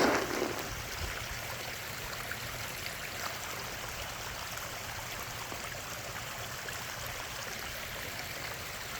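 Steady running water from a backyard koi pond's waterfall or stream, with a short louder rush right at the start.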